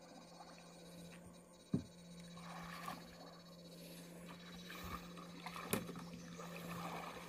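Steady low electrical hum of a handheld electrofishing shocker. It cuts out near the start and comes back on about two seconds in. Two sharp knocks stand out, the louder about two seconds in and another near six seconds, over faint water sounds.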